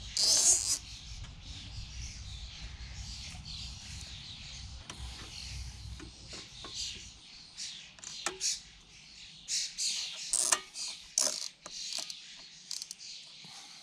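Hand-work noises of a plastic cable tie being fitted to hold back a lawnmower's dead man's handle: a sharp rasp about half a second in, then scattered clicks and rattles. Birds chirp in the background.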